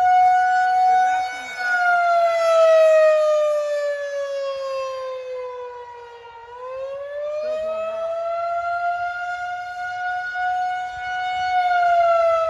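Federal Signal 2001-130 rotating outdoor warning siren sounding the attack signal during a test, one long slow wail. Its pitch falls to a low point about six seconds in, rises again, and begins to fall near the end, while its loudness swells and dips as the siren head turns.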